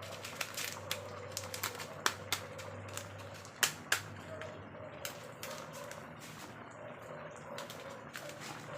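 Kitchen cooking sounds: irregular sharp clicks and taps, the loudest two close together about three and a half seconds in, over a steady low hum.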